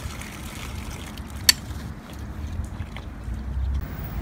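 An elk calf slurping water from the running stream of a yard hydrant, over a steady low rumble, with one sharp click about a second and a half in.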